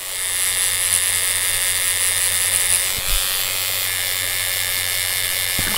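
Tattoo machine buzzing steadily, with a short low thud about three seconds in.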